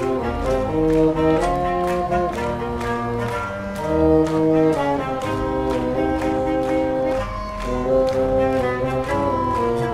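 A high-school wind band playing a march: sustained brass and woodwind chords over a steady beat on drums and cymbals.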